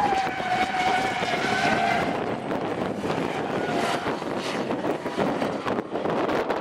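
Drift car engines held high in the revs as the cars slide through a corner in tandem, the note sagging slightly over the first two seconds, then fainter and rougher as the cars move away.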